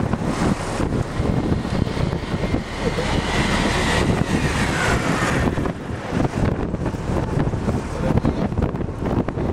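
Engine and road noise of a moving vehicle, with wind on the microphone; a faint whine falls in pitch about halfway through.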